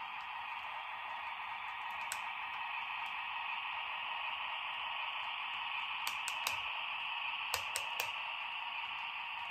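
HO scale model diesel switcher running slowly along the track pushing boxcars: a steady whirring hiss from its motor and wheels, growing slightly louder. There is a single light click about two seconds in and two quick runs of three clicks in the second half.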